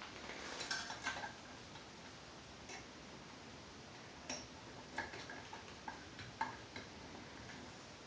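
Faint, scattered light clicks and taps of small metal parts being handled while a dust cover is fitted to a stripped AR-15 upper receiver.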